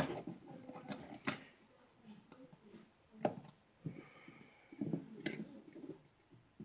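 Small metal clicks and scrapes of a tool and a spring against a 9mm pistol's steel parts while the decocker spring is worked into its groove, with a few sharp clicks spread irregularly through it, the loudest at the very start.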